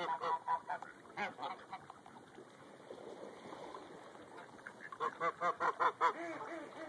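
Greylag geese and mallards calling: quick runs of short honks and quacks, one burst at the start and a louder, faster one about five seconds in.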